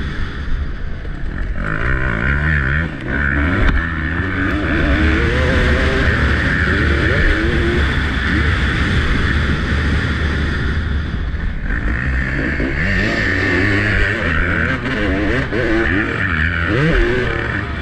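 Dirt bike engine heard from on board, revving hard and easing off over and over as it is ridden round a motocross track, its pitch climbing and dropping with each burst of throttle and gear change.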